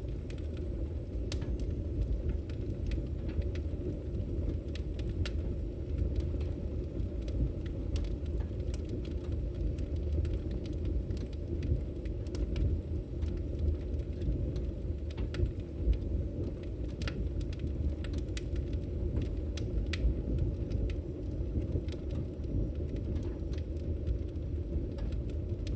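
A steady low rumble with scattered sharp crackles and clicks over it: an elemental nature sound-effect ambience.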